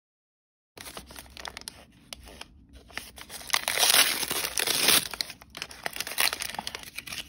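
Plastic blind-bag packaging crinkled and torn open by hand, starting just under a second in. Sharp crackles and clicks build to the loudest tearing and crinkling about halfway through, then continue more lightly.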